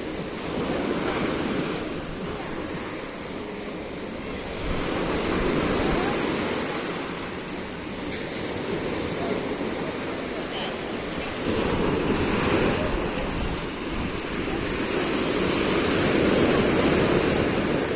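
Rough sea waves surging and breaking against the shore, the noise rising and falling in several swells.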